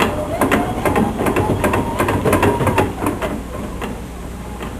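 The pulsatile pump of a hydraulic cardiovascular model running, its mechanism clacking rapidly, about five times a second, over a low steady hum. The clacking fades after about three seconds.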